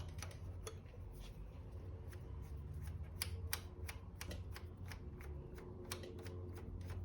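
Faint, irregular metallic clicks and ticks of a 12 mm open-end wrench working the clutch cable's adjuster nut loose at the engine end, over a low steady hum.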